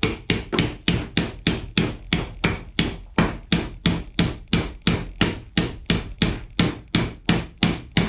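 Small claw hammer driving nails into the finger-jointed wooden corner of a beehive deep super, a steady run of quick strikes at about four a second.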